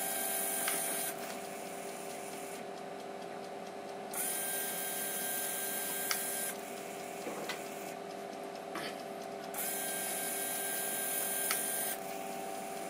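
Emco Compact 5 CNC lathe's electric toolchanger turret indexing three tool positions: its motor runs in three bursts of about two seconds each, with quieter pauses between and a click near the end of each burst, as the turret drives past each tool station and reverses back to lock onto it. A steady machine hum continues underneath.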